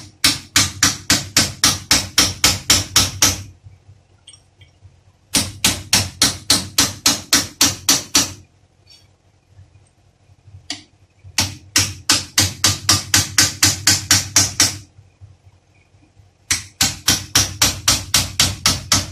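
Hammer rapidly striking a metal punch against a car's steering rack assembly clamped in a bench vise: sharp metal-on-metal blows, about five a second, in four runs of about three seconds each, with short pauses between.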